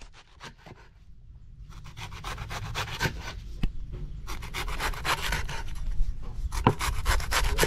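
A cleaver rapidly slicing a banana blossom into thin rounds on a wooden chopping board: quick, crisp cuts, each ending with the blade meeting the wood. They start faint and grow louder.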